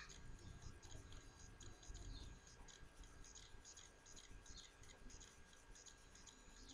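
Near silence: faint microphone hiss and room noise.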